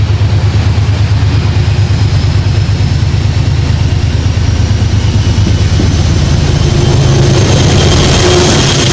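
Diesel train engine running with a steady low throb, while a thin high whine slowly rises in pitch; it grows a little louder near the end.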